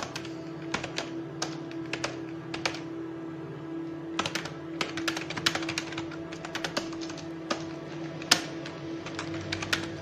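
Typing on a computer keyboard: irregular key clicks in uneven runs, busiest about four to six seconds in, with one louder clack just past eight seconds. Under it, steady background organ music holds a sustained drone.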